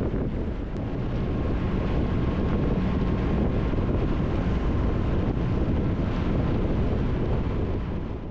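Steady wind rushing over the microphone of a Triumph Tiger 1200 motorcycle riding at road speed, with engine and road rumble underneath.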